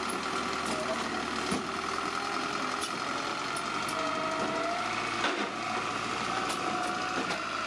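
Bulldozer working, its engine running steadily with a high whine that slides in pitch and a couple of sharp metallic knocks.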